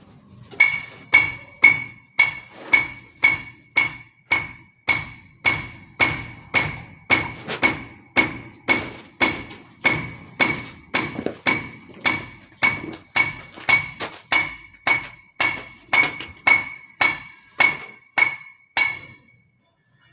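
Steady hammer blows on metal, most likely a steel chisel, at just under two a second. Each blow has a short, high metallic ring. The blows stop about a second before the end.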